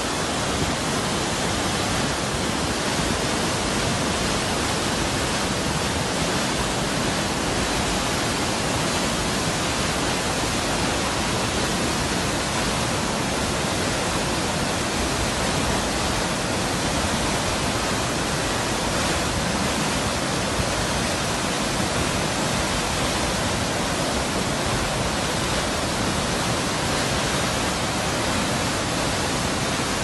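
Waterfall plunging onto rocks into a pool: a steady rush of falling water, filling the whole sound with no break.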